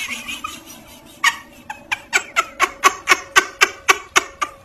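Short, squeaky animal calls repeated in an even train of about four a second, starting about a second in and growing louder.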